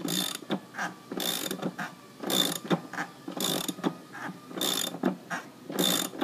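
Socket ratchet on an extension snugging a compressor's mounting bolts: six bursts of rapid pawl clicking about a second apart, one on each return swing.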